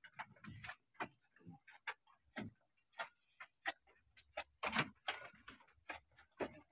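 Faint, irregular clicks and knocks from sheep feeding at a metal trough in a wooden slatted pen.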